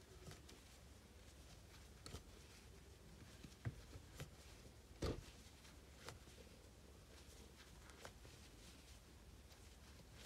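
Near silence: room tone with a few faint, short ticks from a crochet hook and yarn being worked stitch by stitch. The loudest tick comes about five seconds in.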